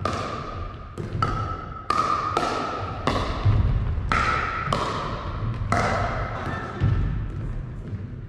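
Pickleball rally: a hollow plastic ball being struck by paddles and bouncing on a wooden gym floor, about ten sharp hits at irregular half-second to one-second intervals, each ringing on in the hall's echo. The hits stop shortly before the end as the rally finishes.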